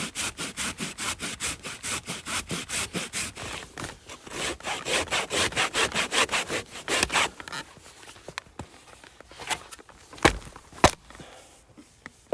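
A bent, cheap hand saw missing some teeth cuts through a dry dead pine log in quick, even back-and-forth strokes, about four a second. After about seven seconds the strokes slow and thin out, and a few sharp wooden knocks follow near the end.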